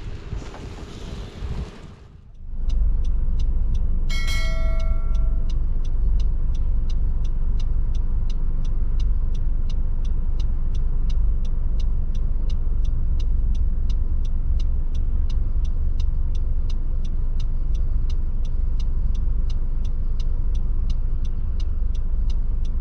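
Loud steady low rumble of a motor vehicle running, with an even, fast ticking about three times a second throughout and a short beeping chime about four seconds in.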